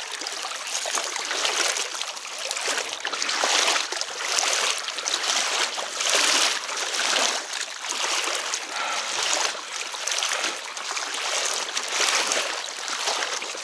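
A small hooked pike splashing and swishing at the surface as it is drawn through shallow water, in surges about once a second.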